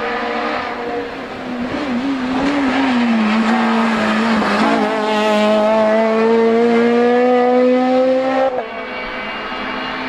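Honda Civic race car's engine. Its pitch dips and wavers as the car slows into a hairpin, then climbs steadily under hard acceleration out of the corner. About eight and a half seconds in it cuts off suddenly, and a quieter, steadier engine note from another race car follows.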